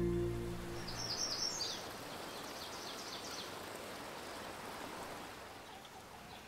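The film score fades out within the first second, leaving a steady hiss of a flowing stream. A quick run of high bird chirps comes about a second in, with fainter chirps after.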